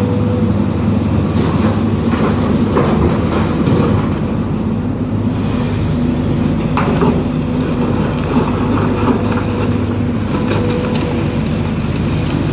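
Hidromek 310 LC excavator's diesel engine running steadily under working load, with scattered clanks and rattles from the working excavator as it digs and loads earth.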